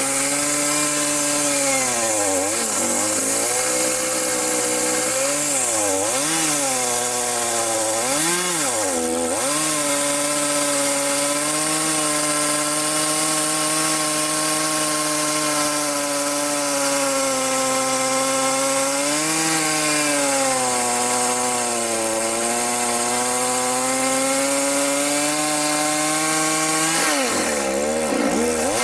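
Chainsaw engine running under load while cutting wood. Its note sags and recovers several times in the first ten seconds and again near the end, and holds fairly steady for long stretches in between.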